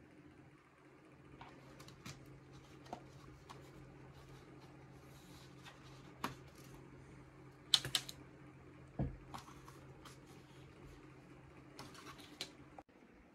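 Faint steady low hum with scattered light clicks and taps, loudest in a quick cluster about eight seconds in, and one dull thump just after.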